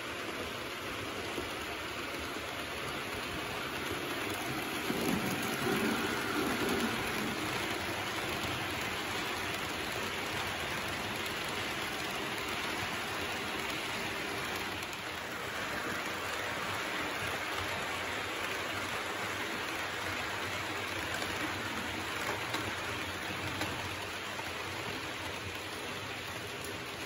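H0-scale Märklin model freight trains running past on the layout's track: a steady rushing rattle of small metal wheels rolling over the rails, swelling briefly about five seconds in.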